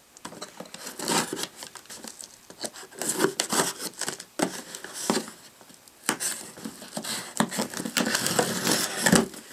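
Crinkling and rustling with scattered small knocks and clicks, as a packaged plastic 3.5-inch to 5.25-inch drive bay adapter is picked up and handled.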